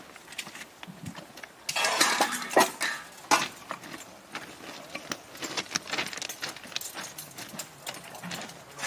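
Metal track-welding tools clinking and knocking as they are handled, with footsteps crunching on gravel ballast. A louder crunching rush comes about two seconds in, followed by scattered sharp clicks and knocks.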